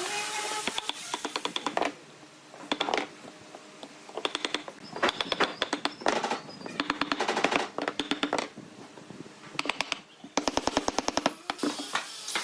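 Power tool running in short bursts of rapid clicking, about eight bursts of under a second each, with brief pauses between them.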